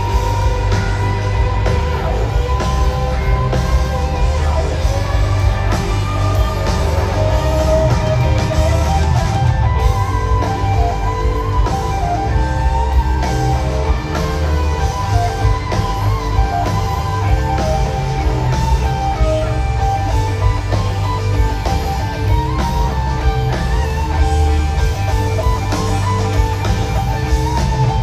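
Live rock band playing an instrumental passage, with electric guitar to the fore over a heavy bass-and-drum backing.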